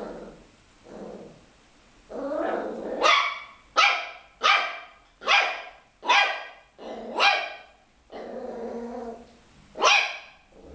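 Small black puppy growling low at first, then giving a string of about seven short, high-pitched yapping barks, with another low growl between the last barks.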